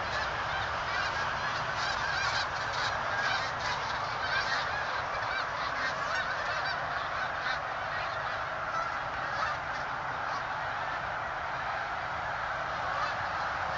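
A large flock of Canada geese honking, many calls overlapping, over a steady background hiss. The calls thin out after about eight seconds.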